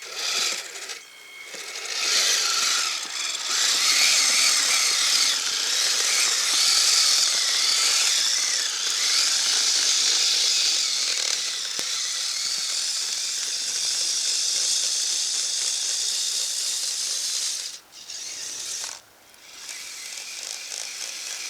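Kyosho Blizzard RC snowcat's electric motor, gears and tracks whining and rattling as it drives, the whine's pitch wavering with the throttle. It starts about two seconds in and cuts out briefly twice near the end.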